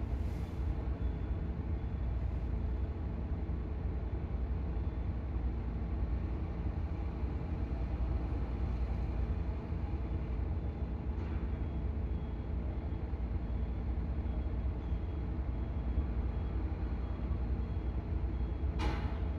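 Steady low rumble of engines running during ferry cargo handling, with short bursts of noise about a second in, near the middle and near the end.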